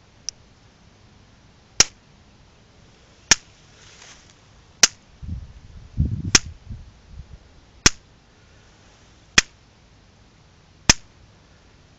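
Electric fence pulses arcing through a rat caught on the wire: a sharp spark snap about every second and a half, seven in all. A brief low rumble comes midway.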